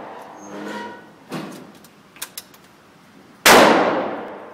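A single rifle shot about three and a half seconds in, with a long echo off the concrete range walls. Before it, the echo of the previous shot fades out, followed by a light knock and a couple of faint clicks.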